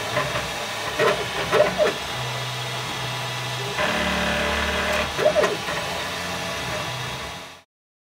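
Desktop 3D printer printing a part: its stepper motors whir in steady tones that jump in pitch as the print head changes moves, with a few quick rising and falling sweeps, over the hum of the cooling fan. The sound cuts off suddenly near the end.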